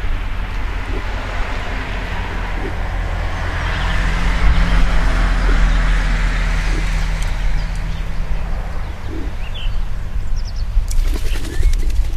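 A car passing on the road, rising to its loudest about five seconds in and then fading away. A few short bird chirps follow, and a rapid clicking rattle comes near the end.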